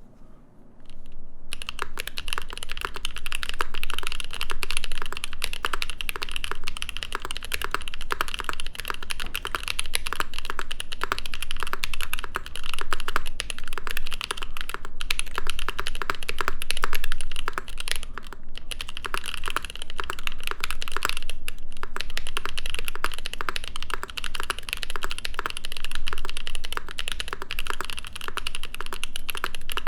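Continuous fast typing on a mechanical keyboard built with prototype Gazzew Thocky linear stems in Boba housings, run dry with only the springs lubed at the bottoms. The typing starts about a second and a half in.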